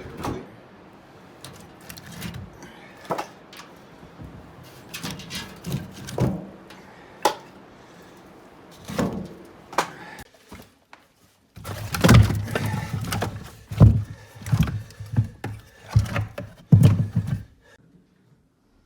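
Pieces of split firewood knocking and clunking against each other as they are handled and stacked. Scattered single knocks come first, then a louder, quicker run of knocks for several seconds that stops shortly before the end.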